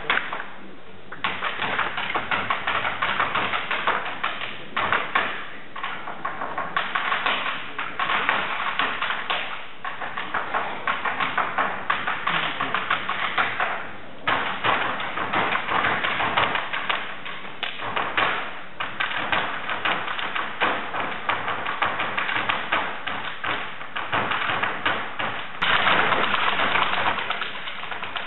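Irish dance hard shoes beating out rapid taps on a stage floor, in quick runs broken by brief pauses, with a denser, louder run near the end.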